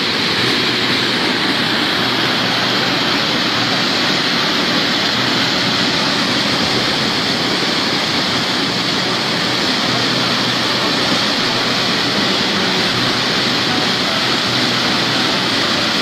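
Muddy flash-flood torrent rushing down a dry riverbed, a loud, steady, unbroken rushing of water.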